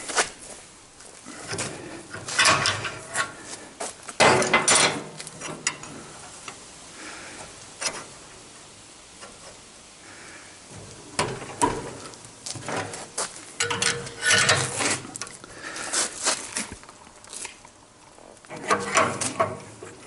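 Steel rod and a large adjustable wrench clanking, rattling and scraping against each other and a bench vise as the rod is levered round to bend it. The metal knocks come in irregular clusters with quieter gaps, a few of them leaving a short ring.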